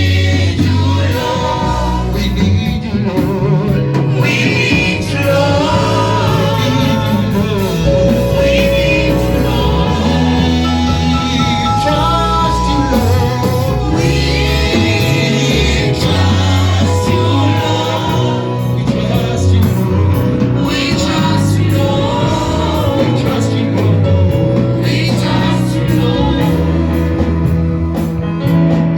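Gospel worship music: a congregation or worship team singing over a loud band with heavy bass.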